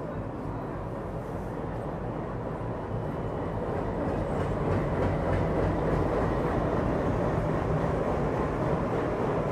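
WDG-4 diesel locomotive, with a 16-cylinder EMD two-stroke engine, running slowly past at close range with a steady engine rumble. It grows louder over the first five seconds as the locomotive comes alongside, then holds.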